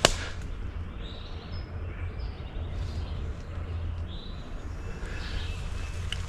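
Songbirds singing in short, scattered phrases in spring woodland over a steady low rumble, with one sharp snap at the very start.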